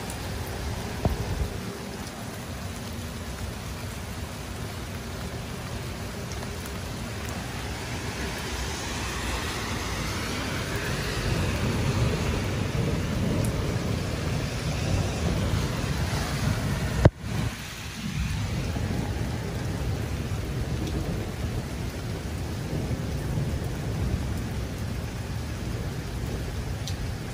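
Steady heavy rain, with thunder rumbling low through the middle of the stretch. A single sharp click cuts in about two-thirds of the way through.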